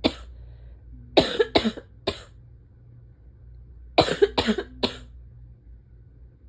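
A person's barking asthma cough: a single cough at the start, then two runs of three quick, harsh coughs, one about a second in and another about four seconds in.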